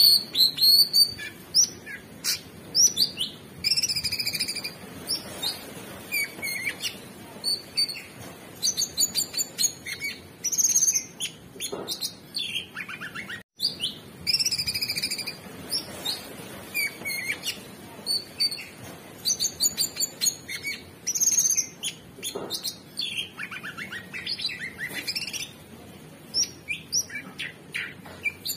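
Orange-bellied leafbird singing a fast, varied run of chirps, whistles and quick trills, broken by a split-second gap about halfway.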